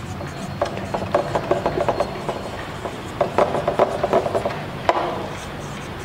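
Marker writing on a whiteboard: quick scratchy strokes in two runs, each a couple of seconds long, as letters are written. A single sharp click comes about five seconds in.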